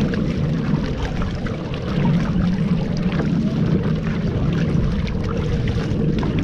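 A small boat motor running slowly at a steady low speed, with water splashing and lapping against the hull.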